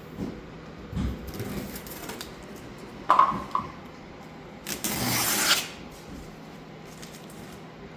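Hands working on vinyl wrap graphics: a brief squeak about three seconds in, then a loud scraping rustle lasting about a second.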